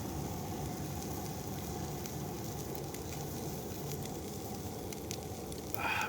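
Food sizzling steadily on an iron griddle over a campfire.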